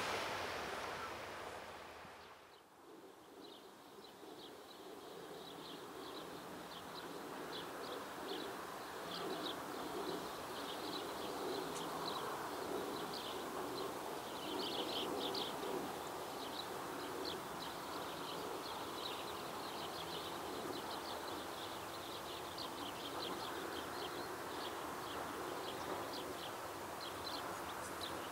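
Outdoor ambience: small birds chirping and trilling in quick, continuous runs, over a steady low rumble that slowly grows louder. The sound of the earlier shot fades out in the first two seconds.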